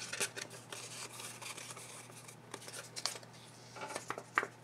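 Paper and small craft items handled on a glass craft mat: light rustling with a scattered run of soft clicks and taps.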